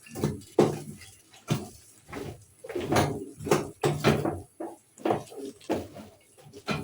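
Irregular knocks and clunks, about a dozen short hits, as cooking pots and utensils are handled.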